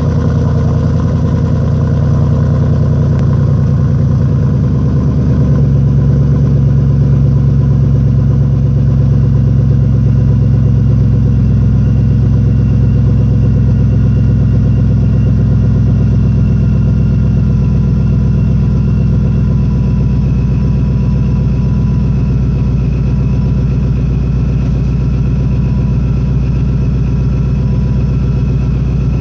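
2011 Ford Mustang GT's 5.0 V8 idling steadily through its exhaust just after a cold start.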